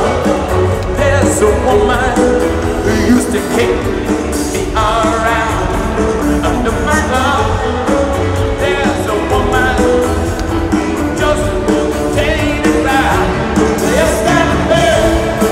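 Live rock band playing in a stadium, electric guitars and drums under a lead singer's voice, recorded from the crowd on a phone.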